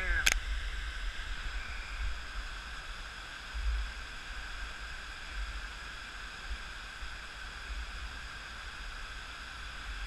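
Steady rushing hiss of open river water flowing below a dam, over a low, uneven rumble. A single sharp click comes about a third of a second in.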